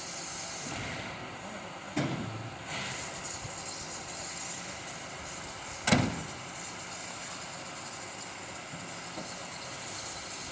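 Steam locomotive standing on a turntable: a steady hiss-like background broken by two sharp knocks, about two seconds in and again about six seconds in, the second the louder.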